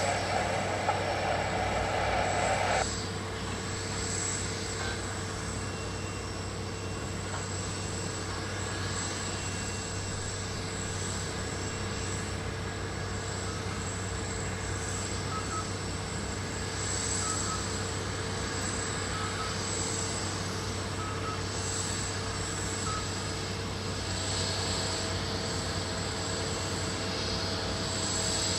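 Jet airliner engines running at an airport: a steady, continuous rumble with a constant whine. A band of hiss in the first few seconds cuts off abruptly about three seconds in.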